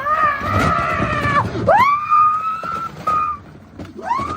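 A horn honking in long, steady blasts, about three of them, each sliding up to its pitch as it starts.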